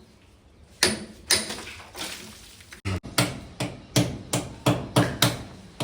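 Hammer driving a cold chisel into a wall, chipping it out: two sharp blows, a short pause, then a steady run of quick blows about three a second.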